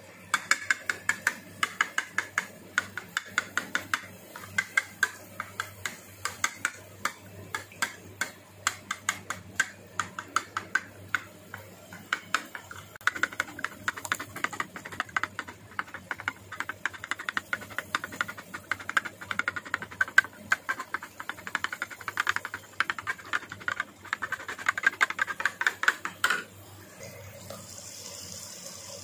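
Metal spoon beating raw eggs in a ceramic bowl: rapid clinks of metal on china, several a second, which stop abruptly near the end. A steady sizzle follows as the beaten egg fries in a pan with onions and tomatoes.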